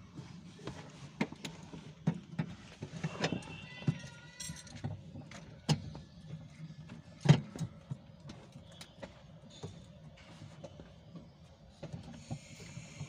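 Irregular clicks and knocks of tools and car parts being handled during dashboard and AC cooling-coil work, with one sharper knock about seven seconds in, over a steady low hum. A steady hiss starts near the end.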